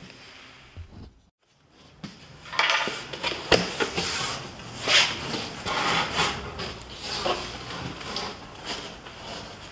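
Cardboard box being opened by hand: flaps scraping and rustling, with a few sharp knocks, the clearest about three and a half seconds in.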